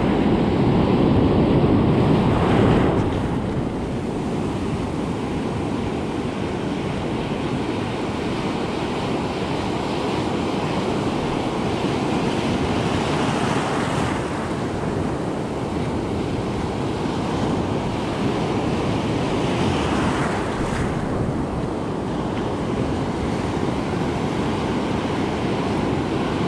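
Ocean surf breaking and washing up the beach close by, a steady rush of whitewater that is loudest in the first few seconds and swells again about halfway through and once more a little later.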